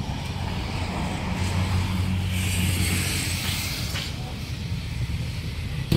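An SUV driving off close by: a steady low engine rumble, with tyre hiss that swells in the middle and then fades.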